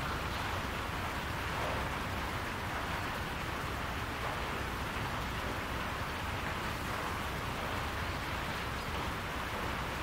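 Steady, even rain falling on a barn roof, with a constant low rumble underneath.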